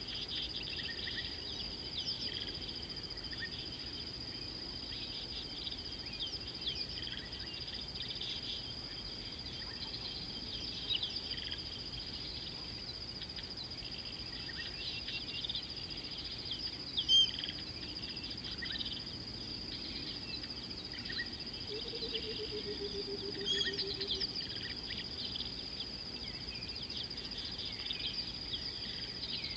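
Bush ambience: a steady, high-pitched insect drone with many short bird chirps and calls over it, and one brief low, falling call about two-thirds of the way through.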